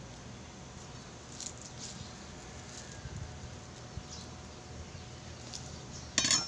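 Faint handling noises of food preparation by hand: a few light scattered clicks over a steady low background hum, then a short, louder rattle of clicks about six seconds in.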